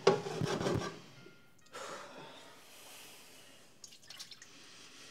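Scrubbing and wiping the inside of a cooking pot with a cloth at a kitchen sink: rubbing and water noises in a few bursts, the loudest right at the start.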